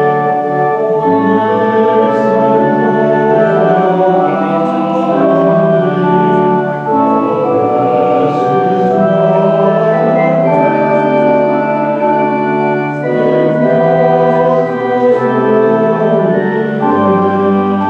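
Church organ playing a slow piece in held chords that change every second or so.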